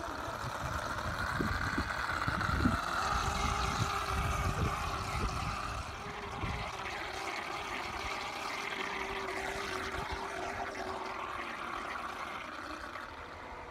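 Homemade plastic-bottle RC speedboat running across a pond: its motor gives a high whine that rises and falls in pitch as the boat speeds up and turns. Irregular low rumbling gusts run under it for the first half.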